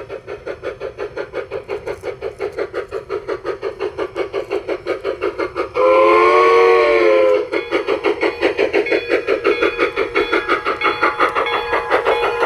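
Soundtraxx sound decoder in a G-scale LGB Mogul steam locomotive playing steady steam chuffs, about four to five a second, through the tender speaker. The chuffs grow louder as the engine runs toward and past the microphone. A chime steam whistle sounds once, about six seconds in, for a second and a half.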